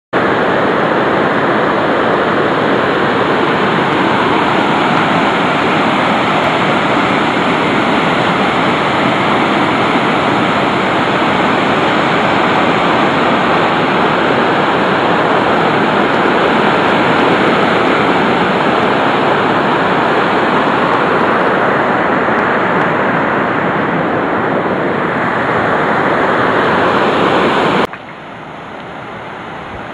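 Loud, steady rush of turbulent river water, which drops off abruptly near the end to a quieter hiss.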